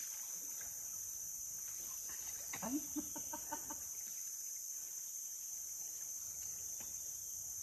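Steady high-pitched chorus of insects, crickets or cicadas. About two and a half seconds in, a short rising call is followed by a few brief calls.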